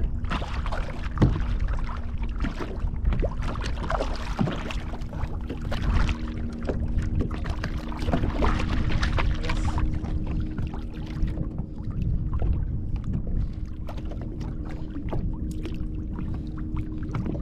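Sea water lapping and splashing against the hull of a fishing kayak, in short irregular slaps over a low rumble, with a faint steady hum underneath.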